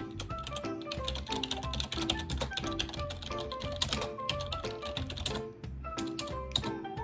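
Background music with a plucky melody and a steady bass beat, over rapid, irregular clicking of typing on a computer keyboard.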